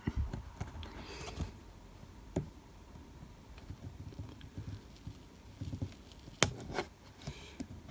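Small plastic clicks and taps of hands and a tool working a tight ribbon-cable connector latch inside a laptop, with light handling rustle and two sharper clicks about six and a half seconds in.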